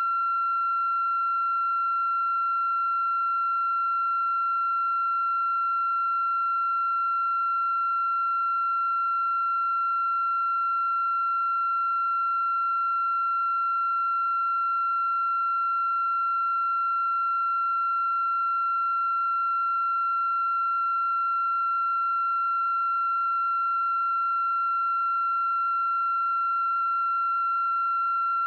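A steady, high-pitched pure tone held without change, with fainter overtones above it.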